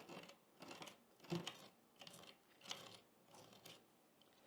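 Faint, irregular scraping and clicking as a stuck part of an old wooden sash window is worked at by hand and tool, in short strokes about every half second.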